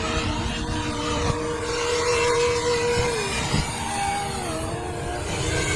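Turbofan jet engines of a C-17 Globemaster III transport running: a steady noise with whining tones that slide down in pitch now and then.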